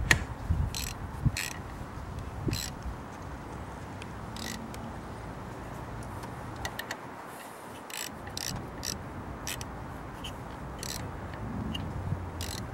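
Hands pushing and twisting the rubber HT lead boots onto the towers of a new ignition coil pack, giving irregular small clicks and snaps with a low rubbing and scraping of rubber on plastic.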